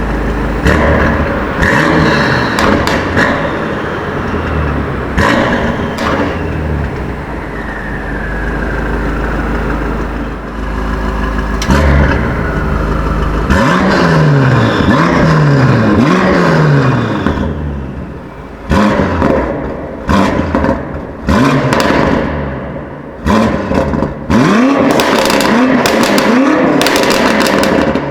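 BMW M5 F90's twin-turbo V8 being revved over and over, its pitch climbing and falling several times, with sharp exhaust pops and bangs crackling on the overrun. A falling whistle sounds about a third of the way in, and the last few seconds are a string of quick blips of the throttle.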